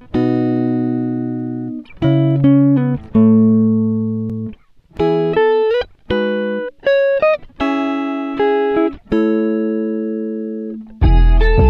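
Background music: plucked chords, each struck and left to ring and fade, a new one about every second.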